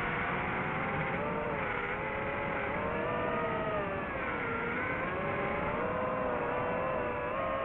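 DJI FPV quadcopter's motors and propellers whining in flight, as several stacked tones over a rushing noise. The pitch dips about four to five seconds in, then climbs back as the throttle changes.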